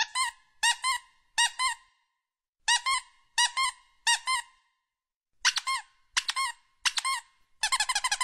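Short high-pitched squeaks, mostly in quick pairs, as a finger presses an alpaca's nose, then a fast run of squeaks, about eight a second, near the end.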